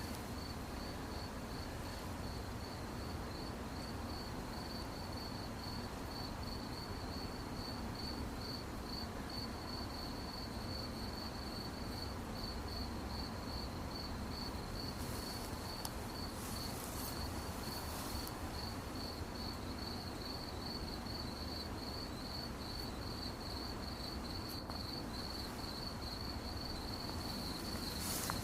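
Crickets chirping: one high, evenly repeated chirp several times a second, steady throughout, over a low background hiss.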